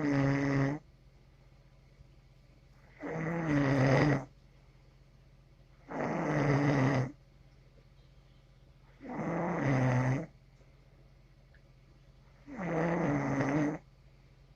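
Steady, rhythmic snoring: five snores, each about a second long with a buzzing pitched tone, spaced about three seconds apart.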